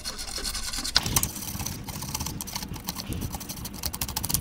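Pliers and wires being worked inside an opened golf cart battery charger, giving a run of small, irregular clicks and rattles that come thicker near the end.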